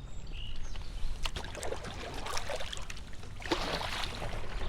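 Canoe paddle strokes in the water: splashes and drips come in irregular bursts over a steady low rumble.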